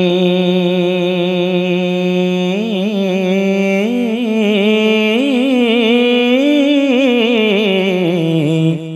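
A man singing a Punjabi Heer verse, drawing out one long note. The note holds steady for the first couple of seconds, then wavers through quick ornamental turns and rises a little before fading out near the end.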